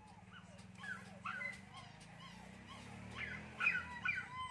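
A dog whimpering in many short, high, arched whines, several a second, louder a little past three seconds in, over a faint low steady hum.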